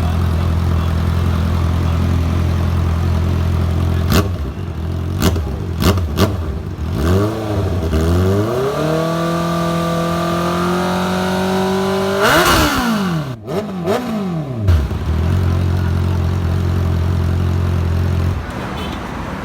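The 2021 Honda CB650R's inline-four engine runs through an aftermarket full-system exhaust, idling steadily. A few short, sharp cracks sound about four to seven seconds in. The engine is then revved up and held at a higher, slowly climbing pitch, blipped sharply higher, and drops back to a steady idle.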